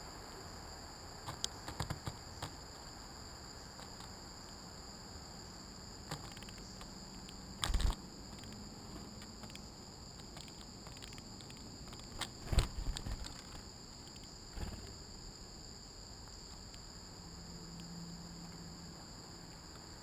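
A steady, high insect chorus, with several sharp knocks and scuffles from small birds landing and moving about right next to the camera. The loudest come about 8 seconds in and just after 12 seconds.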